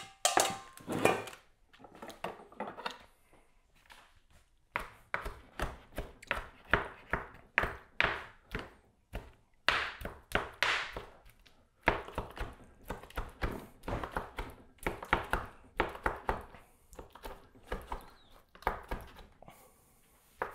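Cooked chicken breast strips being chopped with a knife: a long, irregular run of quick thunks, a few a second, after a short pause near the start.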